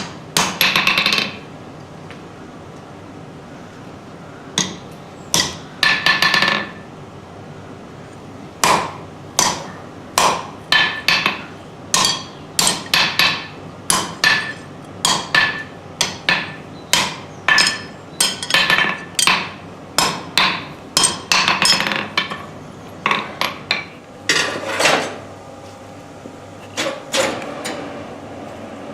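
Hammer blows on an anvil forging 16 mm round stainless steel bar, uneven in spacing: some come in quick runs, with a few pauses of a second or two. Each strike rings briefly.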